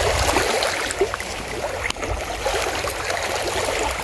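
Water lapping and trickling against shoreline rocks, a steady wash with a low rumble underneath and a few faint ticks.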